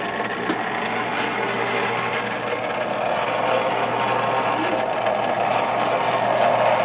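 Cuisinart 2-quart electric ice cream maker running: its motor hums steadily as it turns the frozen freezer bowl while the mixture goes in.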